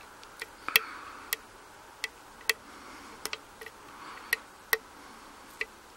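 Metal hook pick clicking and scraping against the pins of a pin-tumbler euro cylinder lock in single-pin picking: about ten sharp, irregular clicks. The pick is working a pin that gives counter rotation of the plug.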